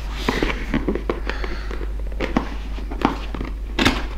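Fingers prying and scraping at the end flap of a cardboard tablet box, with many small clicks and rustles and a sharper click near the end, over a steady low hum.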